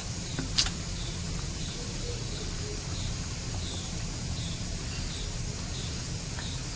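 Steel spoon beating thick gram-flour batter in a steel bowl, with one sharp clink of spoon on steel about half a second in, over a steady low rumble. Faint high chirps repeat about every half second to second.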